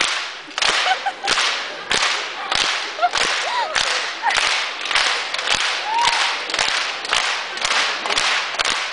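Audience clapping in unison to a steady beat, about three claps every two seconds, with a few faint shouts from the crowd.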